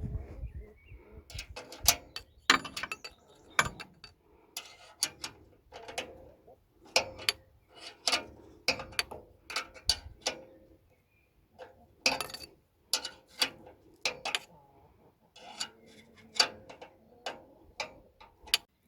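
Ratchet wrench clicking in short, irregular runs of strokes with sharp metallic clicks between them, as clamp nuts on the exhaust are tightened.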